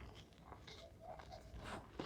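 Reformed gym chalk crunching as it is crushed, two soft crunches about a second apart.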